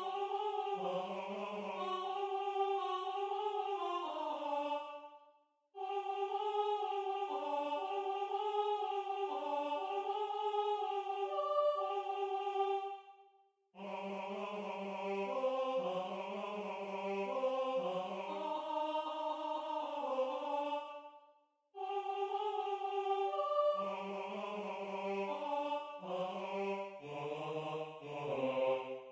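Two vocal parts sung a cappella in solfège syllables (Mi, Fa, Ri, Do, Ti, La), a sightsinging exercise in two-part harmony, in four phrases with three short breaks between them.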